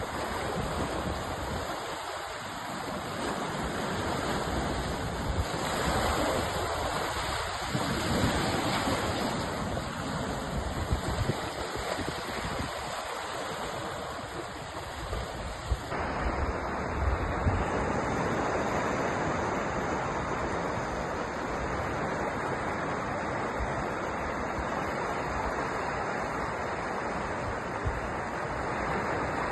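Sea surf: waves breaking and washing in as a steady rush with slow swells and falls. A little past halfway the sound changes abruptly, as at a join between two recordings.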